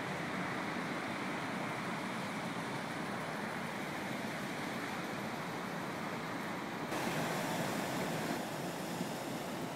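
Steady rushing noise that turns suddenly a little louder and brighter about seven seconds in.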